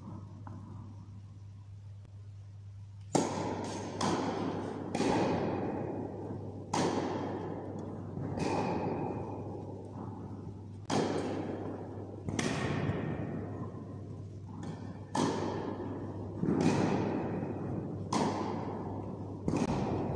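Tennis balls being struck by rackets and bouncing, about a dozen sharp impacts from about three seconds in, each followed by a long echo off the walls of an indoor tennis hall.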